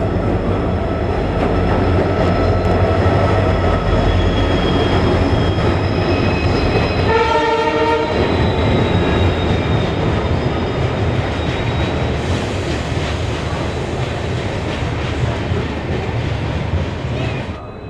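A train running past at speed with a steady heavy rumble, its horn sounding once for about a second and a half some seven seconds in.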